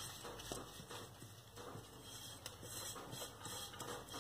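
Faint, soft pattering of a silicone pastry brush dabbing and stroking butter over the bottom of a metal cake tin, with a few small ticks as it touches the metal.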